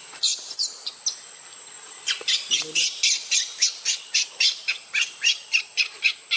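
Baby macaque crying in distress: a few short high-pitched squeals, then from about two seconds in a rapid run of them, about four a second.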